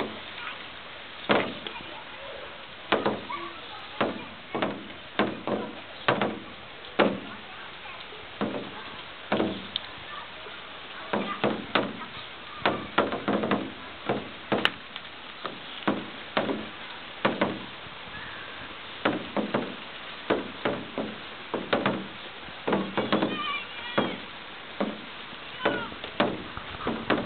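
Steady spring rain hissing on wet pavement and puddles, with large drops falling close by and landing in loud, irregular knocks and plops, about one or two a second.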